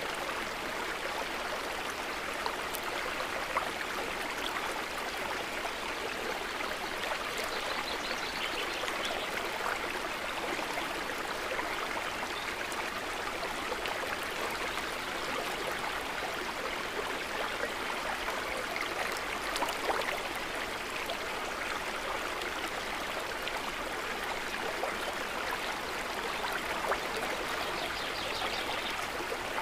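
Steady ambience of gently trickling, gurgling water, with small droplet-like splashes scattered through it.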